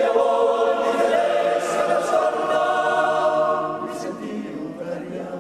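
Men's choir singing a cappella in close harmony: a phrase enters together at the start, holds sustained chords, and grows softer near the end.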